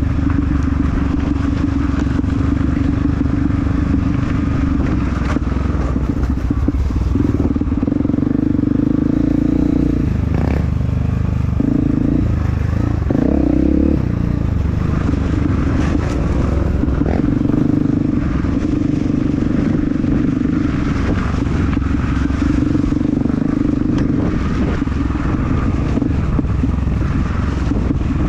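Honda CRF250F's single-cylinder four-stroke engine running under way on a trail ride, its note held steady for long stretches. For a few seconds near the middle it breaks off and changes pitch as the throttle is eased and reopened.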